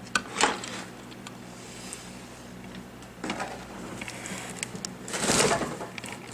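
Handling noises at a repair bench: a few short knocks and rustles as test probes and tools are set down, with the loudest a half-second scraping rustle near the end. Under them runs a faint steady electrical hum.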